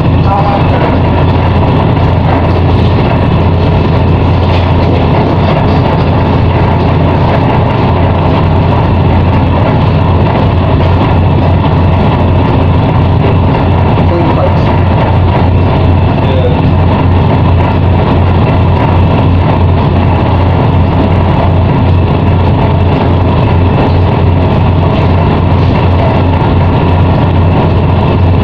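Ship's diesel engine running steadily: a loud, even low drone with a fast, regular throb.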